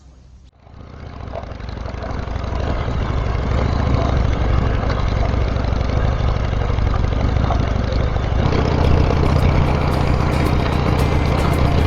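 Harley-Davidson Sportster's V-twin engine running, with a steady low rumble under a broad rushing noise, swelling up over the first few seconds and then holding steady.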